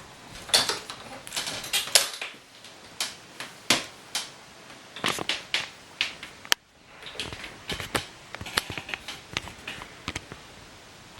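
Irregular clicks and knocks at close range, like objects being handled. There is a sharp click about six and a half seconds in, then the sound drops out for a moment.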